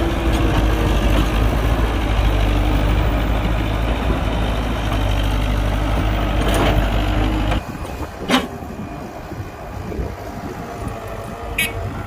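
Heavy diesel construction machinery engine running with a steady low rumble, which cuts off abruptly about seven and a half seconds in, leaving a quieter background with two short sharp clicks.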